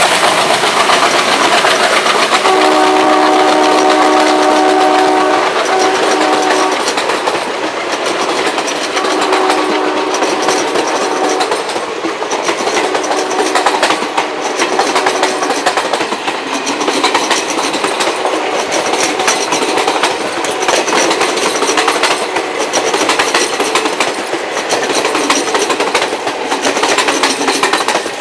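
Indian Railways passenger coaches rushing past at speed, wheels clattering over the rail joints. A multi-tone train horn sounds a long blast a couple of seconds in, then three shorter blasts over the next fifteen seconds or so.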